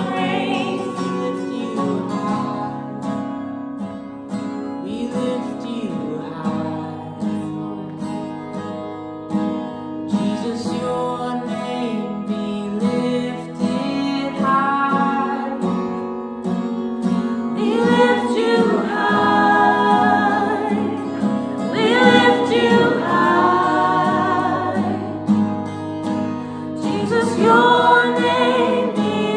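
Contemporary Christian worship song: men's and women's voices singing together over a strummed acoustic guitar.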